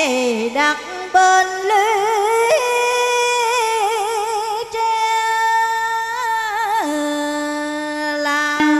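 Live song music with an electronic organ: a melody of long held notes with a regular wavering vibrato, settling onto one steady low note about seven seconds in.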